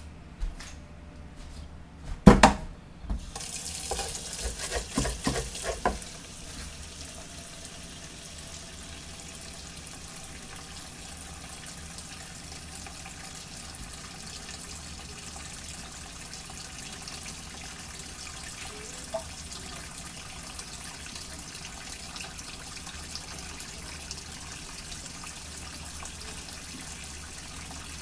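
Kitchen tap running steadily into a sink, coming on about three seconds in. A loud knock and some clattering come just before and during its first few seconds.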